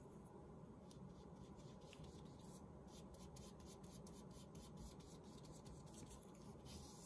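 Faint scratchy strokes of a flat bristle brush spreading glue on a paper strip, a quick run of short strokes, most of them in the second half.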